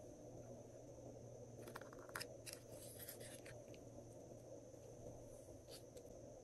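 Glossy slime being handled: faint sticky clicks and crackles, a cluster of them a couple of seconds in and two more near the end, over a low steady hum.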